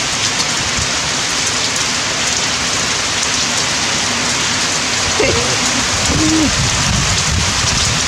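Steady rain falling on surfaces, an even hiss.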